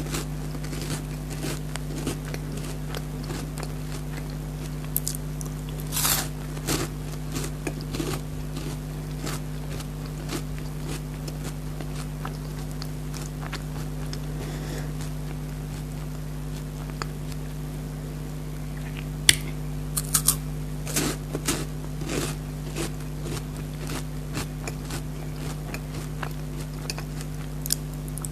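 Close-miked chewing and crunching of a Perk chocolate-coated wafer bar, in scattered short crunches with quieter chewing between them. A steady low hum runs underneath.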